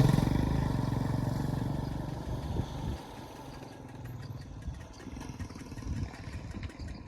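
Motorcycle engine running and fading away over the first few seconds as the bike pulls off, leaving a low, faint rumble and some clatter.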